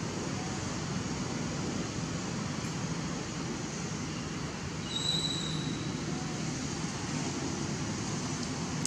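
Steady low outdoor background rumble, with a brief high chirp about five seconds in.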